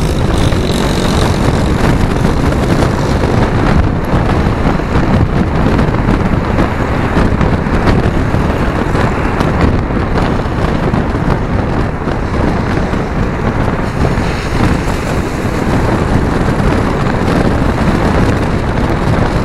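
Steady, loud wind buffeting on the microphone over the running noise of a moving vehicle, as when filming while riding through city streets.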